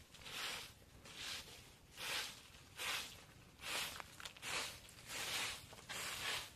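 Dusty ground being swept with bundles of leafy branches: a steady run of brushing swishes, about one every 0.8 seconds.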